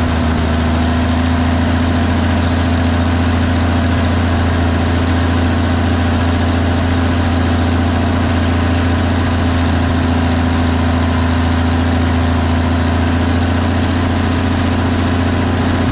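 1955 Chevrolet 6100 truck's straight-six engine idling steadily on its rebuilt carburetor, with the idle a little high.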